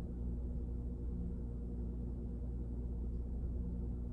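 Steady low background hum made of several fixed tones, unchanging in level.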